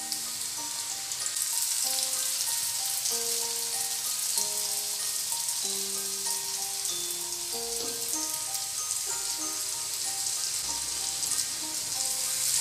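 Hot oil sizzling steadily as achappam batter on an iron rose mould deep-fries, with a slow instrumental melody of held notes playing over it.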